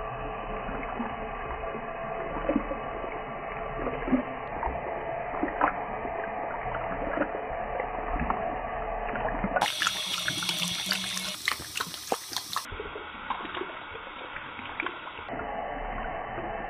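A thin stream of water runs from a bathroom faucet into the sink while a dog's tongue laps at it, giving small splashes and wet clicks. For most of the stretch the sound is slowed down along with the slow-motion picture, so it sounds dull and muffled.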